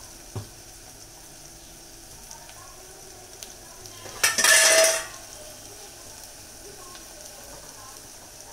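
Onions and spice powders frying in oil in a pot over a gas flame, sizzling quietly and steadily. A short, loud clatter lasting under a second comes about four seconds in.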